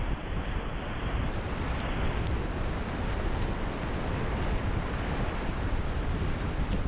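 Steady rush of whitewater in a river rapid, heard from a raft, with wind rumbling on the microphone.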